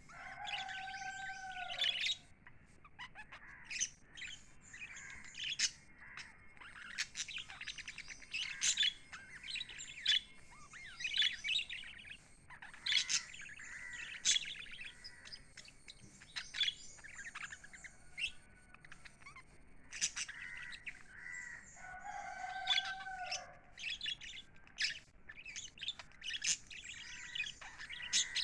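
A small flock of pet budgerigars chirping and chattering, with many short, high chirps overlapping throughout. A longer, lower call that drops in pitch at its end is heard at the start and again about 22 seconds in.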